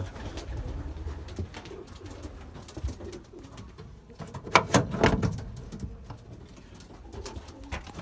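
Racing pigeons cooing in a small wooden loft, with a brief cluster of sharp noises about halfway through.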